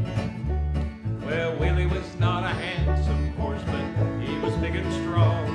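Bluegrass instrumental break: banjo and acoustic guitar picking over an upright bass plucking steady low notes about twice a second.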